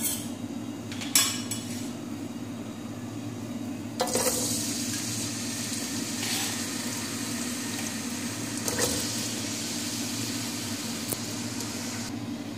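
Sliced onions going into hot oil in an aluminium pot: a few knocks against the pot, then from about four seconds in a steady sizzle of frying. A steady low hum runs underneath.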